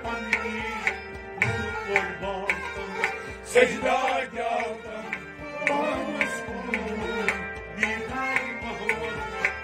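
Instrumental passage of Kashmiri Sufiyana music: a rabab being plucked over sustained harmonium tones, with a tabla-like hand drum keeping a steady rhythm of sharp strokes.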